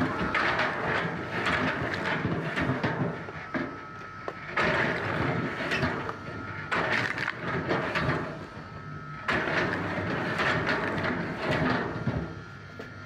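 Wood processing machinery running, with a steady mechanical hum and repeated knocks and clatter of wood, in short stretches that change abruptly every few seconds.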